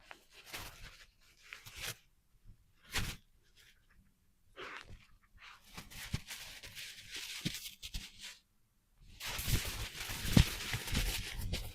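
Snow crunching and scraping underfoot in several irregular bursts, with the longest and loudest stretch near the end.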